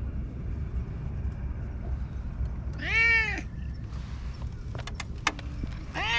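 Domestic stray cat meowing twice: one loud meow about three seconds in and another starting near the end. A few sharp clicks come just before the second meow, over a steady low rumble.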